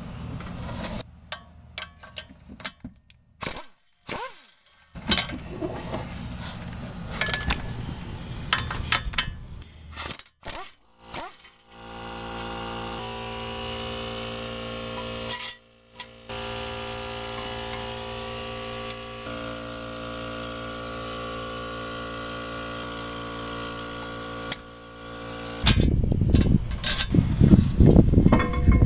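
Work noises at a car's front brake: scattered clicks and knocks of metal tools and parts, then a long steady machine hum, and near the end a loud rough rumble as the brake rotor is handled.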